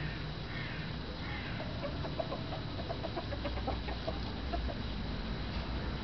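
A flock of Japanese bantam chickens clucking. A run of short, quick clucks starts about a second and a half in, over a steady low rumble.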